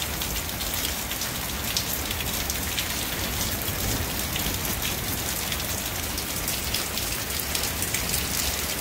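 Steady heavy rain falling, a constant hiss of many close drop hits with no let-up.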